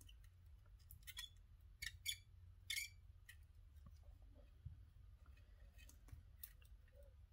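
Near silence broken by a handful of faint, sharp clicks and crackles, most in the first three seconds and one more near the end: a soldering iron and copper solder-wick braid being worked over solder joints on a circuit board while desoldering.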